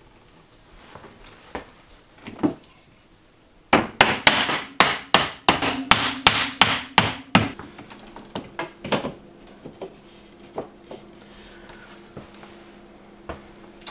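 Hammer striking wooden door casing trim as it is fixed to the door frame: a couple of single knocks, then a quick run of about a dozen sharp blows over some four seconds, then a few lighter taps.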